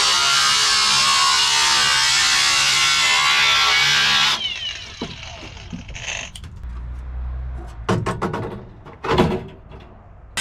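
A power tool cutting through the car's rusted sheet-metal floor pan runs with a loud, steady buzz and cuts off abruptly about four seconds in. Scattered light metallic knocks follow, then two louder clunks near the end.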